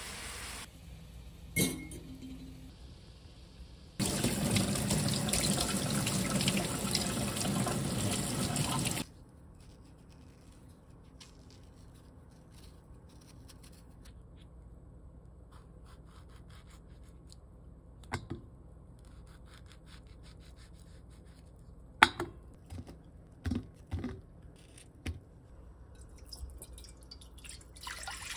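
Kitchen sounds: water rushes steadily and loudly for about five seconds, then stops. A quiet stretch follows with scattered light clicks and knocks as a peach is peeled with a paring knife. Near the end, water starts pouring into a wok.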